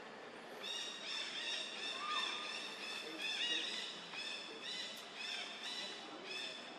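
A run of short, high chirping calls from a small animal, starting about half a second in and repeating about three times a second over a soft background hiss.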